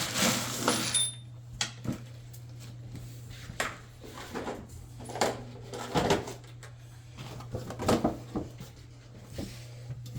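Things being moved and handled in a small room: a short rustle, then scattered knocks and clatters, over a steady low hum.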